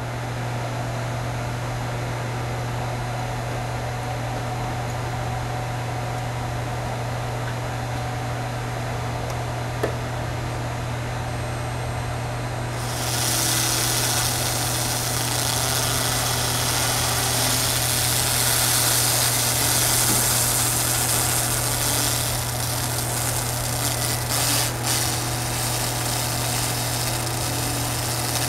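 Steady low hum of a handheld laser cleaning machine; about halfway through, the laser starts firing on the rusty steel chisel blade, adding a loud, even hiss as the rust is burned off, with a couple of brief breaks near the end.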